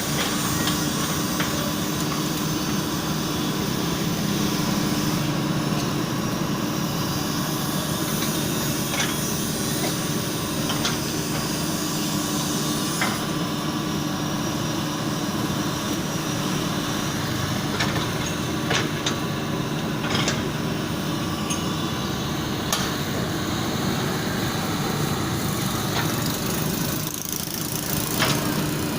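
Kobelco mini excavator's diesel engine running steadily, with scattered sharp clanks.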